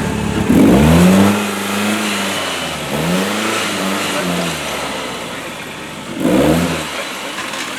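Off-road competition truck's engine revving hard three times, each time rising in pitch and then falling away. The first rev, about half a second in, is the loudest and longest, and a short sharp blip comes near the end.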